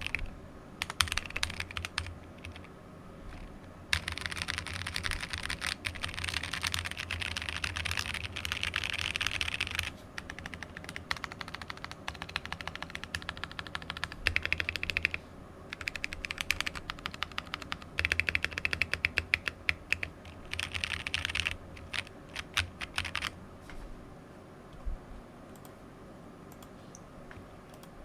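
Typing on a mechanical keyboard with AEboards Naevy tactile switches (extended-pole stems that hit the housing on the upstroke) in a plateless 60% board. Fast runs of key clicks come in bursts with short pauses, thinning to a few scattered keystrokes near the end.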